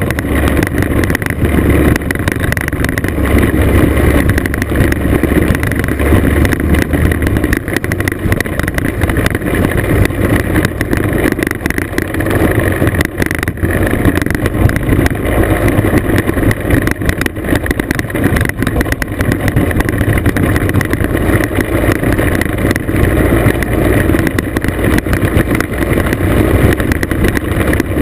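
Classic scooter's two-stroke engine running steadily on a gravel road, with tyre and wind noise.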